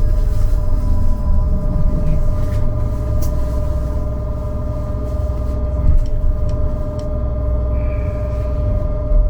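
Trolleybus running, heard from inside the cabin: a steady electrical hum of several fixed tones from its electrical equipment over low road rumble. A few sharp clicks, and a brief high tone about eight seconds in.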